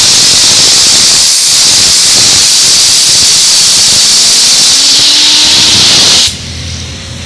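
A jet of compressed air from an air compressor hisses loudly against a fidget hand spinner, with a faint whine slowly rising in pitch as the spinner speeds up. The air cuts off suddenly about six seconds in.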